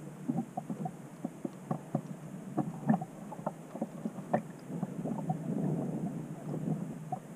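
Water sloshing and gurgling around a sinking Lego boat as it takes on water, with many small irregular splashes and plinks; the sloshing grows fuller about five seconds in.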